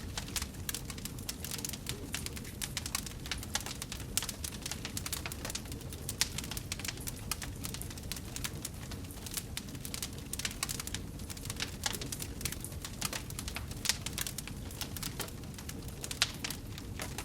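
Wood fire burning in a fireplace: a steady low rumble of flame with dense, irregular crackles and sharp pops throughout.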